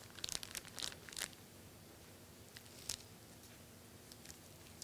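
Faint crinkling and rustling of a sterile glove packet being opened and its wrapper unfolded: a cluster of short crackles in the first second or so, then one more about three seconds in.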